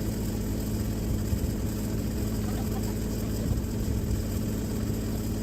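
Engine of the machine used to lift the quartz slabs, running steadily with an even low hum.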